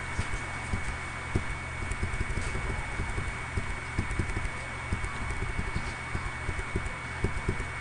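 Irregular soft low knocks, several a second, over a steady hiss with a faint high whine.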